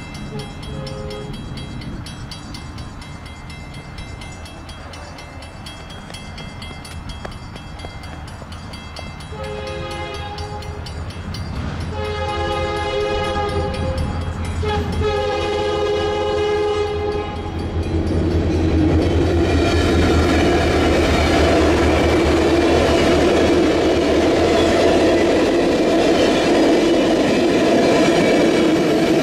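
Union Pacific office car special passenger train approaching and passing: the diesel locomotive's horn sounds three long blasts about ten seconds in over a low engine rumble, then the passenger cars roll past with a loud, steady rush of wheels on rail.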